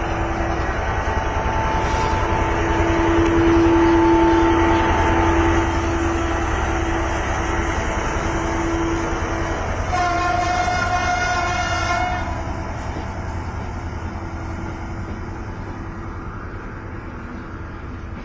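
Passenger train passing close by, a steady rumble with a droning hum. A horn sounds for about two seconds around ten seconds in, and the rumble then fades as the train moves away.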